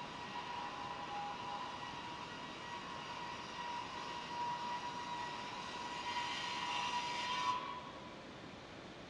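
Circular saw of a PR-620NSP single-saw edging machine running with a steady high whine that grows louder and harsher about six seconds in, then cuts off suddenly about seven and a half seconds in, leaving a faint hiss.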